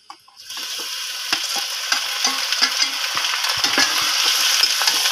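Raw chicken pieces tipped into a kadhai of hot mustard oil and fried onions: a few knocks, then sizzling that starts about half a second in and slowly grows louder, with a metal spatula scraping and clicking against the pan as it is stirred.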